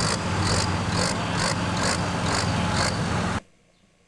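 International farm tractor's diesel engine running hard under full pulling load, with a high hiss pulsing about twice a second over the engine. The sound cuts off abruptly about three and a half seconds in, leaving near silence.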